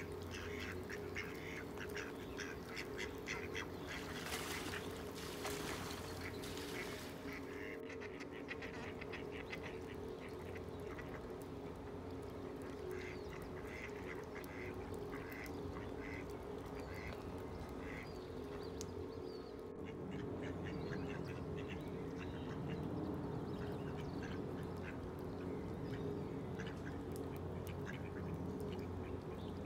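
Mallard ducks quacking, short calls repeated again and again.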